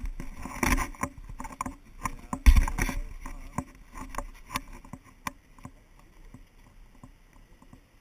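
Irregular knocks, clicks and low wind rumble picked up by a body-worn GoPro's microphone as the wearer walks and moves, with a heavy low thump about two and a half seconds in. After about five seconds it settles to sparse faint clicks.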